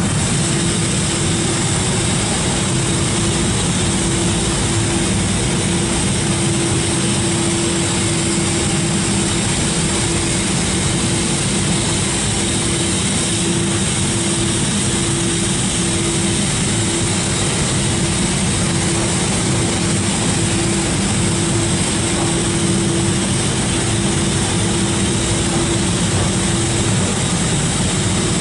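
Tammermatic UltraLux rollover car wash gantry running a pass over a car. A loud, even rushing noise lies under a steady hum, with no break.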